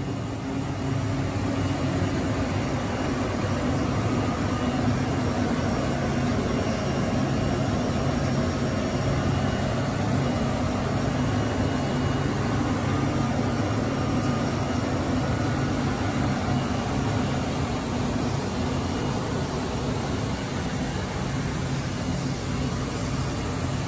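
WFL M35G Millturn CNC turning center powered up and idling: a steady low hum under an even fan-like hiss that does not change.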